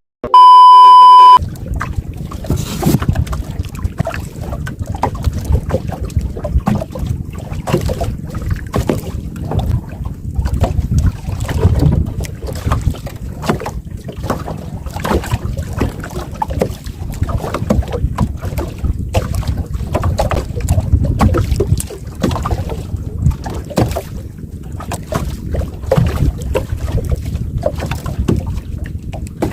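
A loud steady electronic beep lasts about a second at the start. Then wind buffets the microphone on a small fishing boat, with a steady rumble and many small irregular knocks and splashes.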